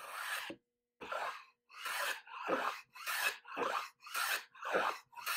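Metal hand plane taking short, shallow shaving strokes across the end grain of a poplar board to cut a bevel: a quick scraping swish repeated about nine times, a little under two a second.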